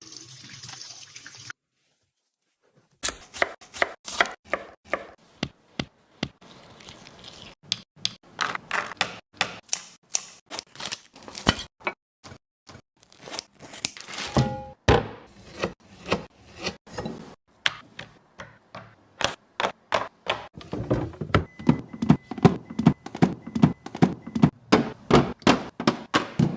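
A long series of knocks and thunks from household objects being handled and set down, coming fast and fairly regularly near the end.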